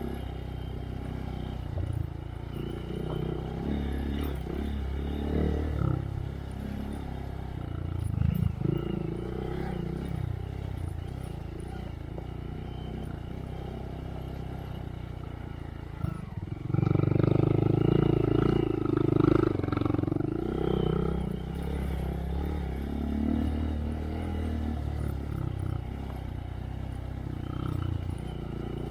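2023 Honda Monkey's single-cylinder engine through a Yoshimura RS3 slip-on exhaust with spark arrestor, revving up and down as the bike is ridden on trail. Just past the middle the revs drop for a moment, then the throttle opens and it runs loudest for a few seconds before settling back.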